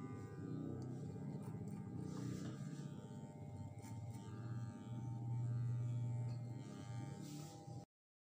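Electric hair clipper running with a steady hum as it cuts hair over a comb at the back of the head, with background music underneath; the sound cuts off suddenly near the end.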